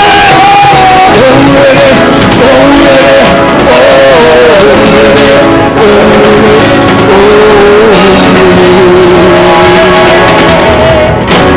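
Loud live gospel praise music from a band, a lead melody moving between long held, wavering notes over dense accompaniment.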